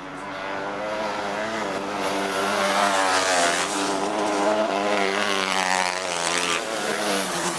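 Racer 250 class autocross buggies racing on a dirt track, their engines revving and dropping in pitch several times over. The sound grows louder as they come closer and is loudest a few seconds in.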